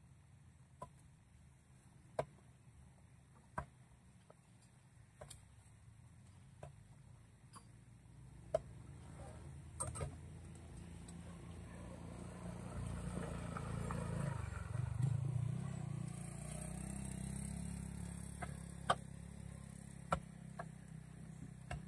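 A motor vehicle passing: a low engine rumble swells over several seconds to a peak a little past the middle, then slowly fades. Light, sharp ticks sound about every second and a half throughout.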